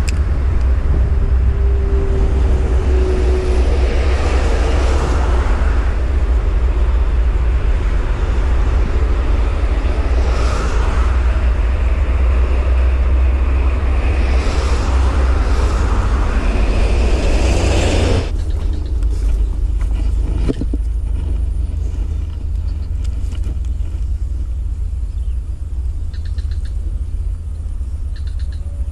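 Road traffic on a toll road, vehicles passing one after another over a heavy low rumble. About two-thirds of the way through, the sound cuts abruptly to a quieter, steady low rumble.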